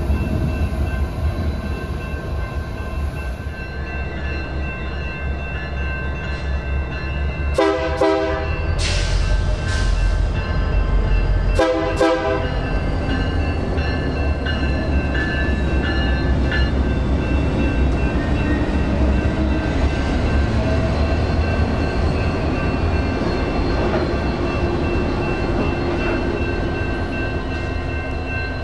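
BNSF EMD GP60M diesel locomotives running past a grade crossing, with a steady engine rumble. About a third of the way in, the lead unit sounds two short horn blasts about four seconds apart. Crossing bells ring throughout.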